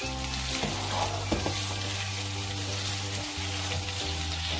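Raw chicken pieces and sliced onions sizzling in oil in a nonstick frying pan as they are stirred and turned with a spatula. This is the first frying of the chicken, just added to the lightly browned onions.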